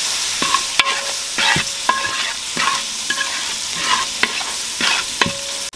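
Onion-and-spice masala sizzling in a large metal cooking pot while a steel spatula stirs it, scraping and knocking against the pot two to three times a second, some knocks leaving the pot ringing briefly.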